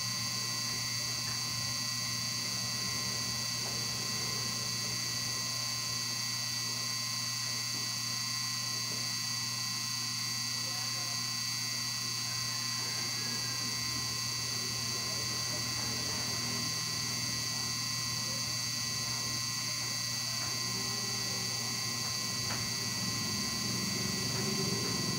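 Steady electrical hum with a high-pitched whine over it, unchanging throughout, with faint voices in the background.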